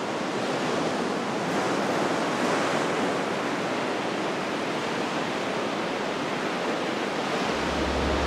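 Steady rushing noise with no distinct events, fading in at the start. A low steady hum joins near the end.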